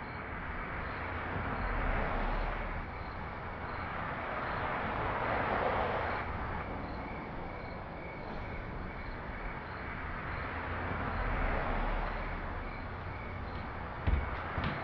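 Outdoor night ambience: a steady rushing noise that swells and fades in slow waves, with a faint high chirp repeating about once a second. A single knock near the end.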